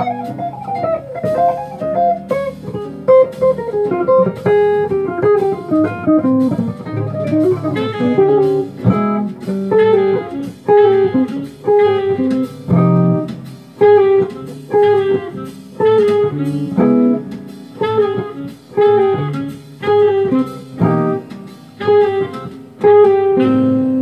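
Hollow-body electric guitar playing jazz: quick single-note lines at first, then short, rhythmic chord hits from about a third of the way in, closing on a held chord that rings out near the end.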